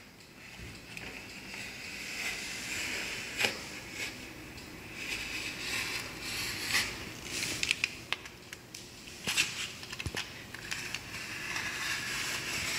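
Utility knife blade scoring the caulk along the seam between painted door trim and the wall: repeated scraping strokes with scattered sharp clicks and crackles.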